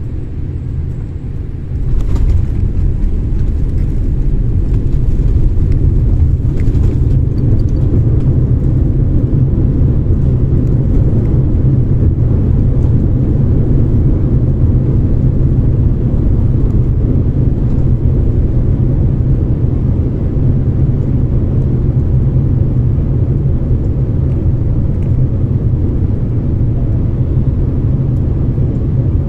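Boeing 787-8 airliner touching down and on its landing roll, heard inside the cabin: a sudden jolt about two seconds in, then a loud, steady low rumble as it slows on the runway with its ground spoilers raised.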